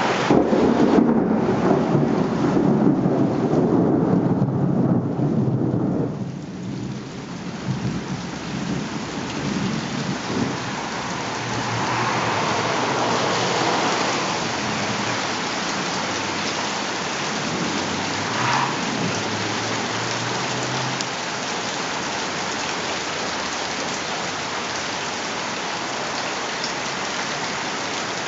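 Thunderstorm: a long low rumble of thunder over heavy rain, dying away about six seconds in, leaving steady heavy rainfall.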